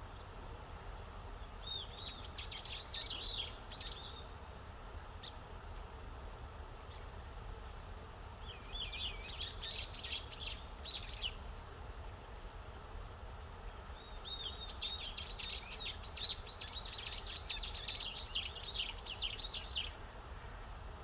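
Eurasian tree sparrows chirping in three quick, rapid bouts, the longest near the end, over a steady low background rumble.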